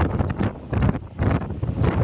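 Strong, gusty wind buffeting the microphone in rapid, irregular blasts of low rumble.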